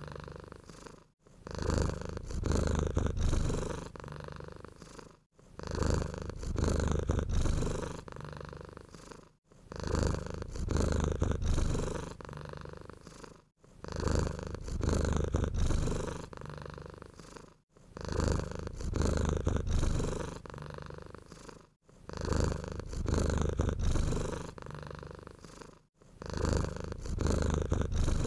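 Domestic cat purring close up, in cycles of about four seconds. Each cycle has a louder stretch and then a softer one, and is cut off by a brief drop-out before the next begins.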